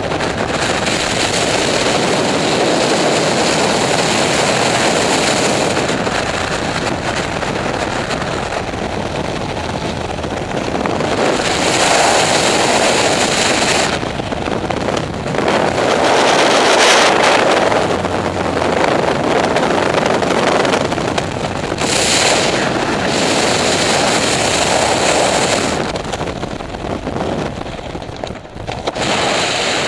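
Freefall wind rushing over the camera microphone during a tandem skydive: a loud, steady rush that swells and eases. Near the end it dips and turns uneven as the parachute opens.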